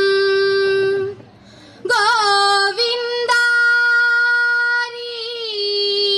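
Girls singing a vanchippattu, Kerala's boat song, in the Aranmula style. A long held note stops about a second in, and after a short pause a new phrase starts with quick wavering turns, settles on a higher held note, then slides back down to the lower note.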